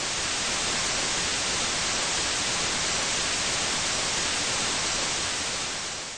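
Television static: a steady, even hiss of white noise, used as a sound effect.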